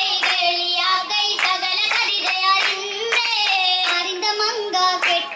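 Young female voices singing an Oppana (Mappila wedding song) in Malayalam, with sharp hand claps from the dancers on the beat.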